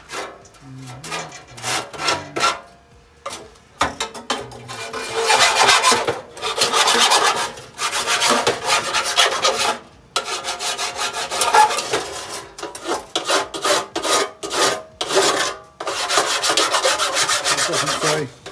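Hand filing or rasping strokes against an edge: a few short scrapes at first, then a steady run of longer strokes, each about a second long, from about four seconds in.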